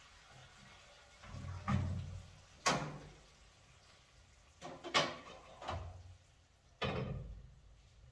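Kitchenware being handled at a sink and stove: about five knocks and clatters a second or so apart, the sharpest about a third of the way in and near the middle, each with a short ring.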